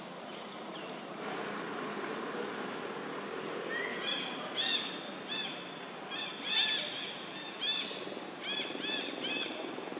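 A series of short, high, arched animal calls, one or two a second, beginning about four seconds in, over steady outdoor background noise.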